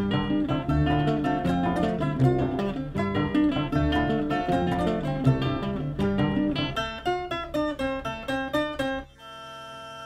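Acoustic guitar music, plucked and strummed. It breaks off about nine seconds in, giving way to a quieter, steady sound of held tones.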